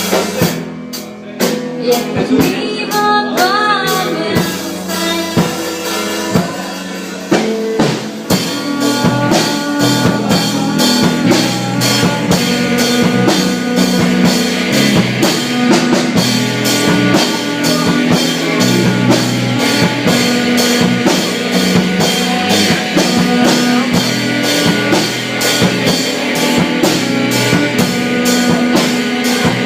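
Rock band playing live, with drum kit and electric guitar. It is sparser at first, then the full band comes in with a steady, driving drum beat about eight seconds in.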